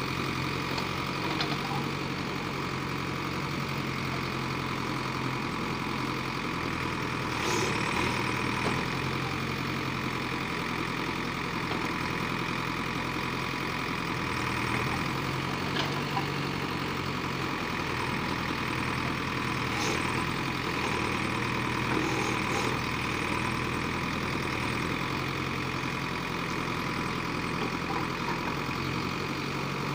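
JCB 3DX backhoe loader's diesel engine running steadily while the backhoe arm digs and swings soil, with a few short sharp knocks scattered through.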